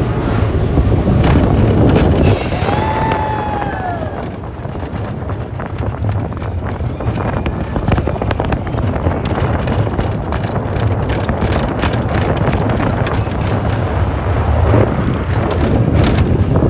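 Expedition Everest roller coaster train running along its track: a heavy low rumble with rapid clattering of the wheels, and wind buffeting the microphone. A short rising-then-falling tone cuts through about three seconds in.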